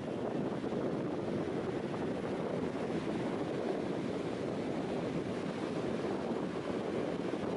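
Steady rush of wind on the microphone mixed with ocean surf on the beach.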